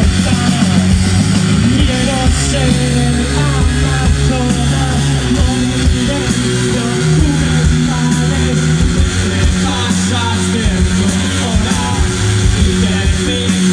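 Live rock band playing loud, with electric guitar, bass guitar and drums.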